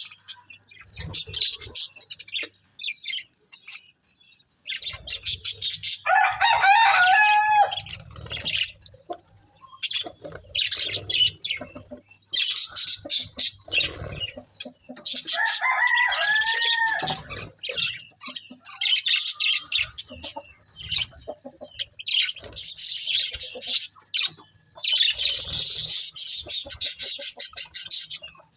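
Budgerigars chattering and warbling in repeated bursts of rapid, high twittering with short pauses between them, and a few longer, lower calls that rise and fall.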